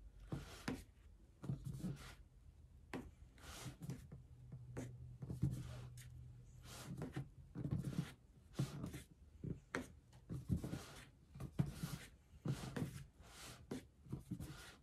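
Lightweight spackling paste being spread and smoothed over a round cardboard box with a spreading tool: irregular soft scrapes and dabs, some quick, some drawn out.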